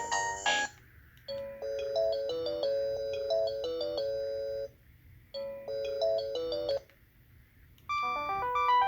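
Sangoma D10 IP DECT phone playing its built-in electronic ringtones: a busy tune cuts off just after the start, a short melody plays twice with a pause between, and a different ringtone begins near the end.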